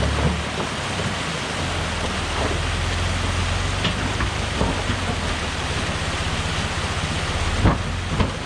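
Off-road truck engine running at a steady low speed, its low hum holding pitch under a constant hiss, with two sharp knocks near the end.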